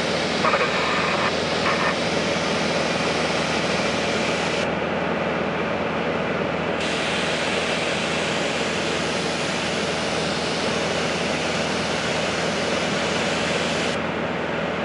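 Small propeller plane's engine droning steadily, heard from inside the cabin over a constant rush of air.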